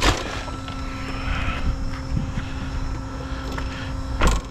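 Small electric cooling fan on an RC car running with a steady whine, over a low rumble. A sharp knock comes at the start and another near the end.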